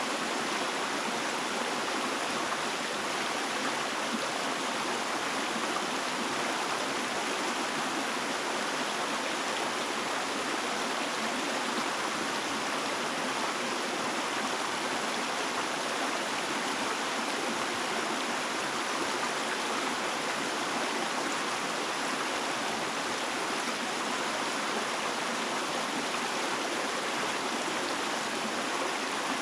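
Flowing water rushing steadily and evenly, with no single splashes or other sounds standing out.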